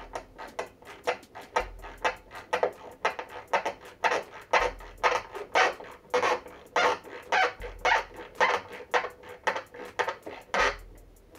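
Rhythmic scraping strokes of a hand tool worked on a wooden frame joint, about three strokes a second, steady and even, stopping near the end.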